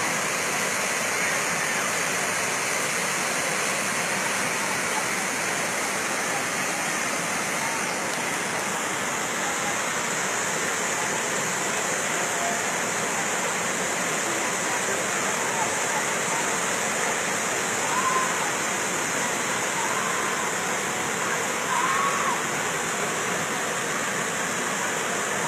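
Steady rushing of muddy floodwater pouring down a street after a thunderstorm downpour.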